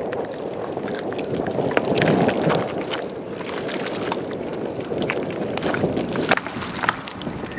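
Wet mud squelching, with scattered small wet pops and sucks as a person crawls through it on hands and knees, pressing and dragging through the mud. Wind rumbles on the microphone underneath.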